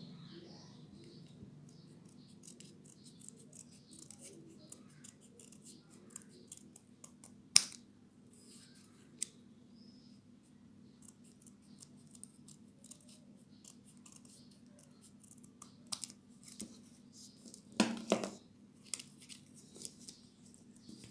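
Scissors snipping through blue paper in a string of small cuts, with a sharp louder click about seven and a half seconds in and a louder burst of snips and paper handling near the end. A faint steady low hum runs underneath.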